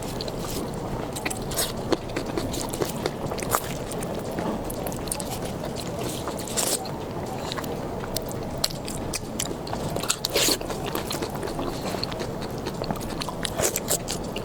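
Close-miked eating: a person biting and chewing food, with many short wet clicks and smacks over a steady low background noise.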